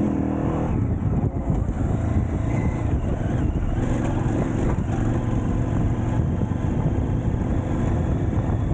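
Off-road motorcycle engine running steadily as the bike rides along a dirt forest track, heard from a camera mounted on the bike.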